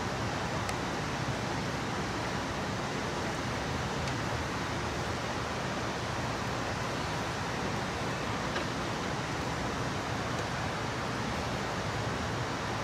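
Steady rumble and hiss heard inside an Amtrak passenger train car as the train runs, with a few faint ticks.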